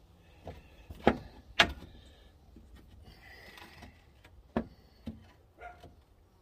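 Small metal parts being handled and fitted by hand on an old car engine: a few sharp clicks and knocks, two loud ones about a second in and half a second apart, and another about four and a half seconds in.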